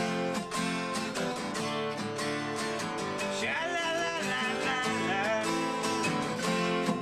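Background music: a strummed acoustic guitar keeping a steady rhythm, with a melody line that bends in pitch coming in about three seconds in.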